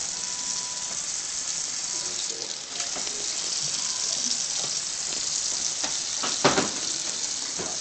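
Kitchen tap running into a stainless steel sink, a steady hiss of water, with a sharp knock about six and a half seconds in.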